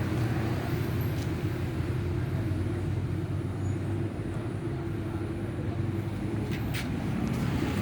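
A steady low hum of a running motor, with a couple of faint short clicks.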